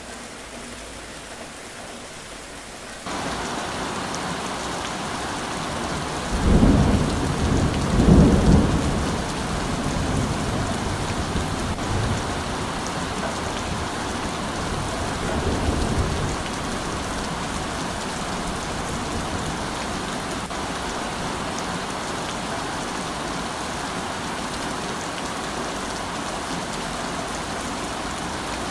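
Steady heavy rain, which jumps abruptly louder about three seconds in. Two deep rolls of thunder come about six to nine seconds in and are the loudest sounds, with a fainter rumble around fifteen seconds.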